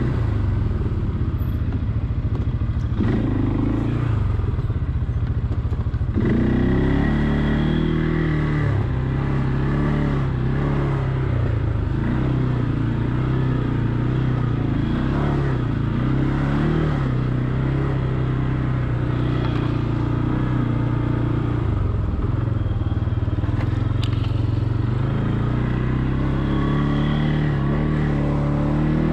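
Quad (ATV) engine running under way, its pitch rising and falling a little with the throttle.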